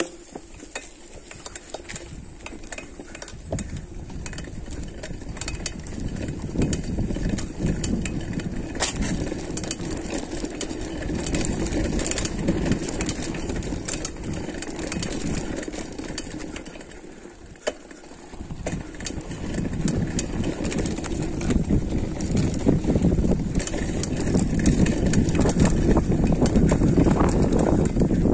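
Mountain bike ridden downhill over a rough dirt trail: a steady rumbling rush with frequent sharp clicks and rattles from the bike. It drops off briefly about two-thirds of the way through, then rises again and is loudest near the end.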